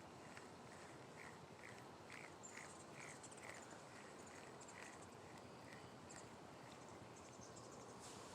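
Near silence: faint outdoor ambience with a run of soft, evenly spaced chirps, about two or three a second, that fade out after a few seconds.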